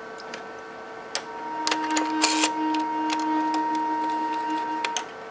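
Canon 300II microfilm scanner's motorised film transport running for about three and a half seconds, rewinding film that had not caught on the take-up spindle. It is a steady whine with clicks as it starts and stops.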